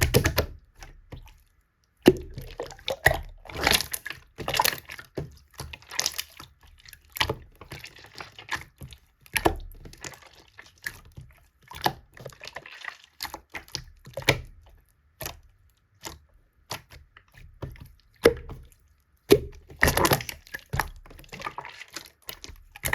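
Slime being worked by hand: irregular wet squishes, pops and clicks, with a short pause about a second in.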